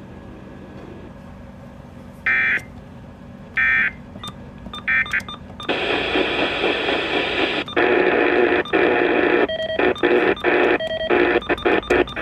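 Radio receiver hiss with three short squawking data bursts about a second apart, like Emergency Alert System end-of-message tones. From about six seconds in, loud radio static takes over and keeps cutting in and out, with faint steady tones in it.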